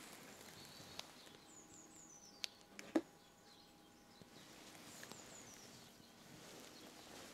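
Faint handling of small metal model-engine parts as the cylinder cover is fitted over the piston rod: a few light clicks and one sharper tap about three seconds in. A bird's faint descending trill is heard twice behind it.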